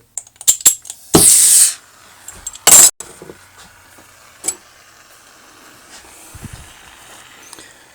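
Hot soldering on a copper seam: a few light clicks, then two short, loud hisses about a second apart, typical of flux sizzling as the hot iron meets the fluxed joint.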